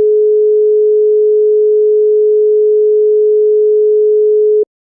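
Telephone holding tone (Botswana call-progress tone): a single steady 425 Hz tone, the signal that the call has been put on hold. It cuts off sharply near the end, as the first half of its 5-seconds-on, 5-seconds-off cadence.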